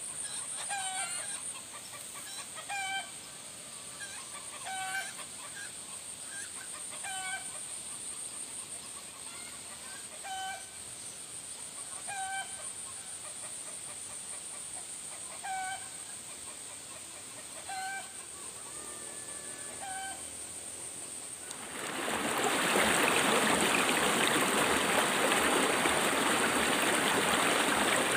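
A bird's short call, repeated about every two seconds, over a steady high whine. About 22 seconds in, the louder rushing of a small flowing river takes over.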